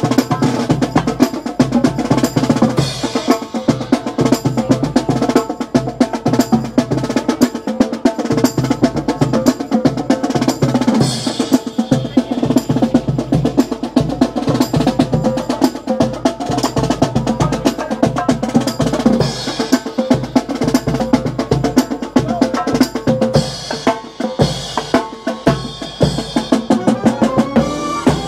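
Marching band drum cadence: snare and bass drums keep a steady marching beat with rolls and rim clicks. Brass comes in near the end.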